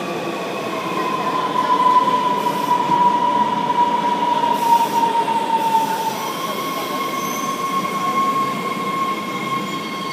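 Washington Metro train slowing as it pulls into the station: wheels rumbling on the rails under a high whine that falls slowly in pitch, then jumps up to a steady tone about six seconds in.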